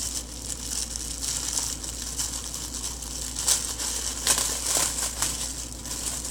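Thin clear plastic packaging crinkling and rustling as it is handled and pulled open, with irregular louder crackles, the strongest about three and a half and four seconds in.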